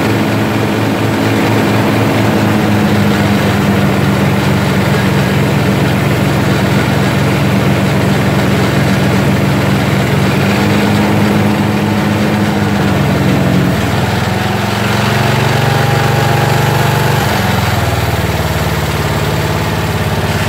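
Briggs & Stratton single-cylinder engine of a rear-engine riding mower running steadily at mid throttle. About 14 s in, its note drops lower, and it shifts again a few seconds later.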